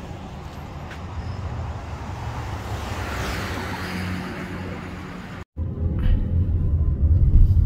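Street traffic noise, swelling as a car passes about three to four seconds in. After a sudden cut, a car's steady low road rumble takes over, louder.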